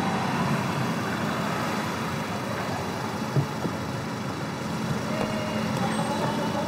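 Steady vehicle running noise, with a short knock about three and a half seconds in.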